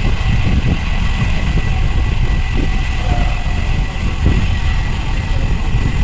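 Wind rushing over a bike-mounted camera's microphone on a fast road-bike descent: a loud, steady rumbling noise with a faint steady high tone.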